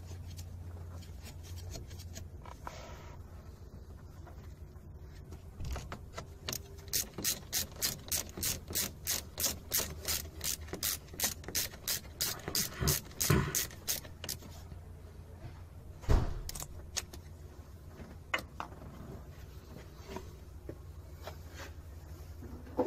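Hand ratchet clicking in a steady run of short strokes, about three a second, turning a bolt on the EGR valve. A single loud knock follows a couple of seconds after the clicking stops.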